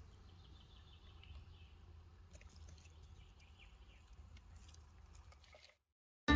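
Faint outdoor ambience: a low steady rumble with a few faint high bird chirps, cutting off to silence near the end.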